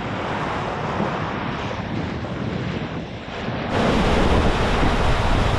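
Wind and sea rushing past a sailing catamaran under way. About three and a half seconds in it jumps suddenly louder: water churning along the hull, with wind buffeting the microphone.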